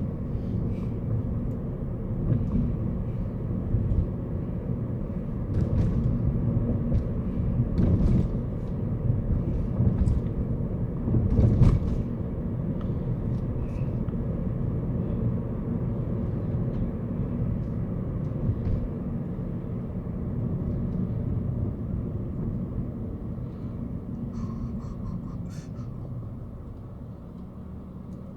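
Car on the move: a steady low rumble of engine and tyre noise, with scattered faint clicks and knocks. There is a louder low surge about twelve seconds in, and the rumble eases off near the end.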